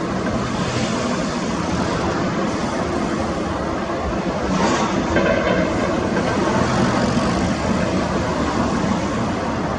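Jet engines of a Japan Airlines Boeing 787-8 running, a steady loud roar and rumble.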